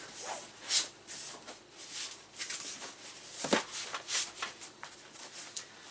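Handling noises as computer parts are moved about: scattered light rustles and clicks, with one soft knock about three and a half seconds in.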